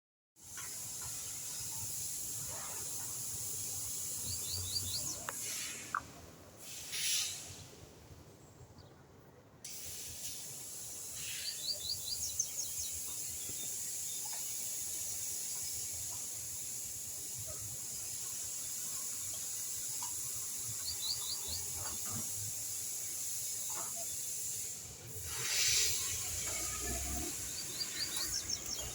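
Small bird chirping in short quick runs of four or five high notes, repeating every several seconds, over a steady high hiss and low background noise. Twice a louder whoosh swells and fades.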